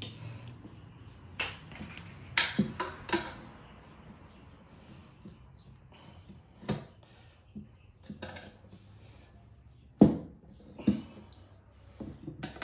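Metal tyre levers clinking and knocking against a spoked motorcycle wheel rim as a knobby enduro tyre's bead is levered and pushed onto the rim. The knocks come as a scatter, the loudest about ten seconds in.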